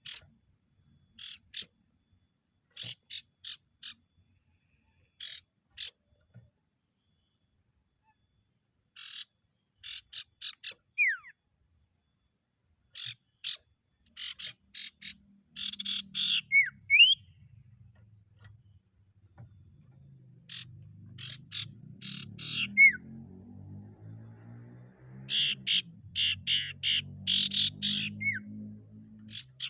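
Common iora (sirtu) singing in bursts of rapid chattering chips. Several bursts end in a short, clear down-slurred whistle. A low hum runs underneath from about halfway.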